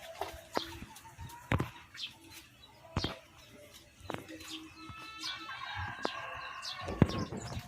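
Young native gamefowl chickens, about 45 days old, clucking and peeping in short calls, with scattered sharp taps. A longer drawn-out call from about two-thirds in ends with a loud thud just before the end.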